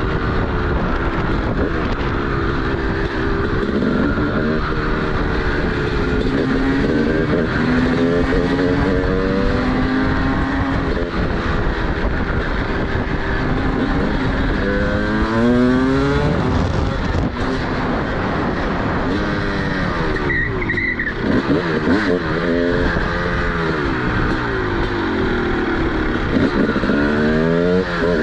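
TM SMR 300 single-cylinder two-stroke supermoto engine through its DBR exhaust, being ridden hard: the pitch climbs in repeated rising sweeps as it accelerates, dropping sharply between them on gear changes and throttle-off. About two-thirds of the way through, the throttle closes briefly before it picks up again.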